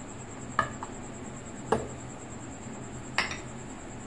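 Three short knocks and clinks of kitchenware, a second or so apart, as a cup and a small container are handled and set down around a stainless-steel mixer jar.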